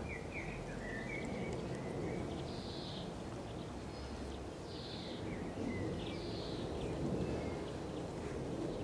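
Steady low outdoor background noise with a few short, high chirps scattered through: a cluster in the first second or so, then three more spaced a couple of seconds apart.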